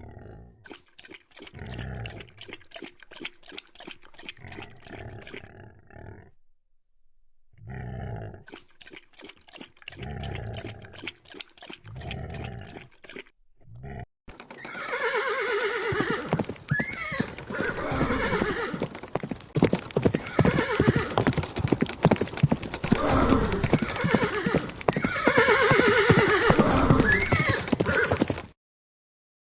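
Horse sounds: hooves clip-clopping in two quieter stretches with a short break between them. Then, for about the second half, louder neighing: several rising-and-falling whinnies over continued hoofbeats, stopping suddenly near the end.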